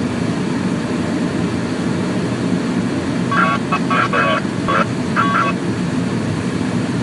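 Steady low rumble of a car driving on a snowy road, heard from inside the cabin. About halfway through, a few short high-pitched tones sound over it.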